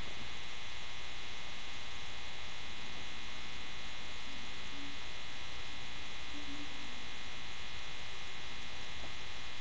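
Steady electrical buzz and hum made of many fine tones, holding one level without a break.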